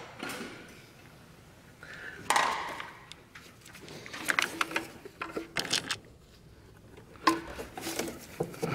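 Scattered clicks and clinks of hand tools and parts being handled during engine intake disassembly. There is a sharp knock about two seconds in and a quick run of clicks a little later.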